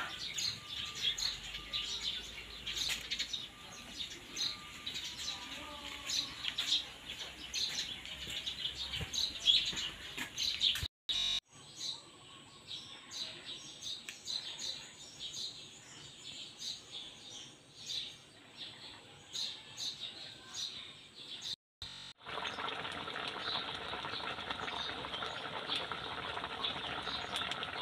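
Small birds chirping and twittering in short repeated calls. In the last few seconds, after a cut, a steady hiss of tilapia and vegetables simmering in a wok.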